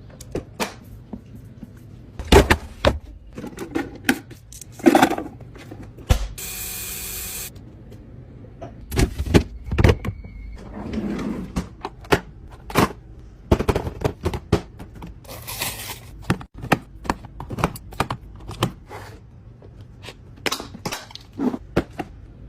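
Household items and containers being handled and set down while a refrigerator is organised: an irregular run of knocks, clicks and taps, with a steady hiss lasting about a second some six seconds in.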